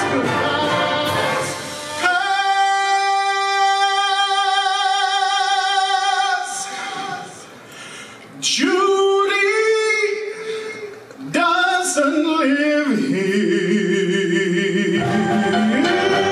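Concert band music with a solo voice: the band plays, then the voice holds one long high note with vibrato, followed by quieter sliding wordless phrases over held chords, before the full band comes back in near the end.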